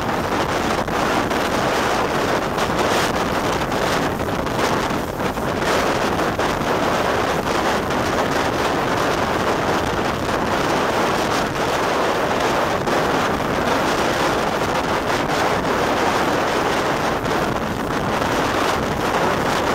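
Steady wind rushing over the microphone at an open carriage window, over the running noise of a train hauled by Great Northern Railway V class 4-4-0 compound steam locomotive No. 85 Merlin.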